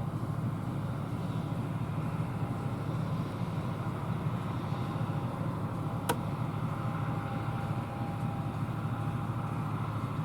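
John Deere combine running steadily while harvesting soybeans, a low even drone with a faint steady whine. A single sharp click about six seconds in.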